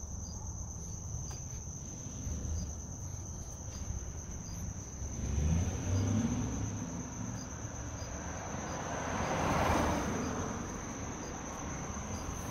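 Steady high-pitched cricket chirping with a low rumble underneath; a broad rushing noise swells and fades about nine to ten seconds in.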